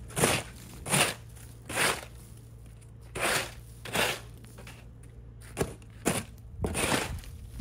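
Footsteps crunching through snow, about one step every 0.7 s with a short pause midway, over a low steady hum.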